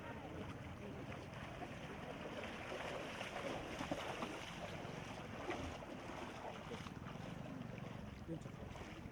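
Steady outdoor noise of a flooded street, a continuous wash without distinct events, with faint voices in the background.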